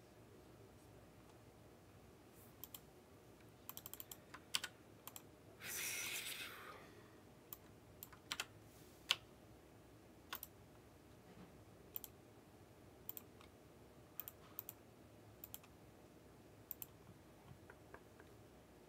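Sparse clicks and short runs of keystrokes on a computer keyboard, with a brief rustle about six seconds in.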